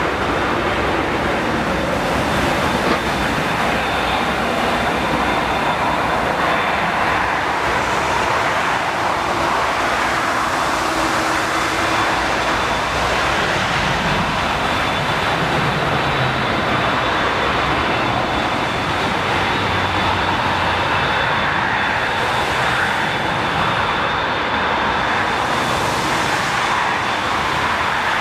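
Airbus A380's four jet engines running with a steady rush of noise and a faint, even whine as the airliner rolls along a wet runway, throwing up spray from its wheels.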